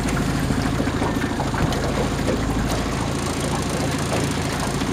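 Small motorboat's engine running steadily at low speed, a constant low hum with water noise over it.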